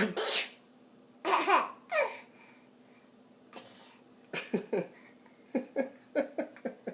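A girl's fake sneezes, three loud ones in the first two seconds, followed from about four seconds in by a run of short bursts of laughter.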